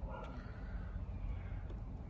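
Quiet outdoor background noise: a low steady rumble with no distinct event, and a faint click about a quarter second in.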